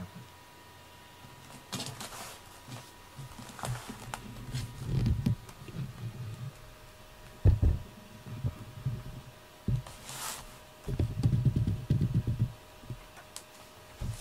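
Cat purring in low, pulsing rumbles that come and go in two stretches while one cat grooms the other, with a few soft thumps between them.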